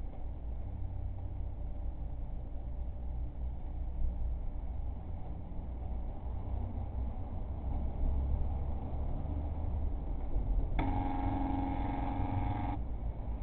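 An air horn blast sounds once near the end, a single held honk of about two seconds, played over a speaker. It scares the listener, who hears it as an alarm going like a bullhorn. Under it runs a low steady rumble.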